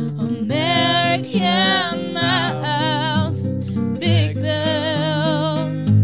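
Acoustic guitar playing an accompaniment under a wordless sung melody: two long vocal phrases held on sustained notes with vibrato.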